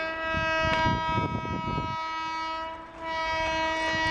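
Indian Railways electric locomotive horn: a long steady blast that cuts off about two seconds in, then a second long blast starting about a second later, over a low train rumble.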